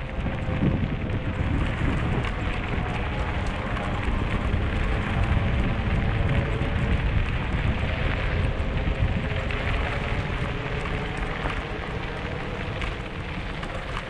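Wind rushing over an action camera's microphone while a mountain bike's tyres roll over a dirt-and-gravel trail, with a faint steady hum underneath.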